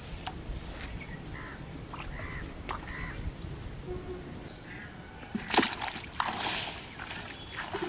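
A sharp splash a little past halfway as a bamboo fishing pole is jerked up and its line and hook are torn out of the pond water, followed by a short rush of noise.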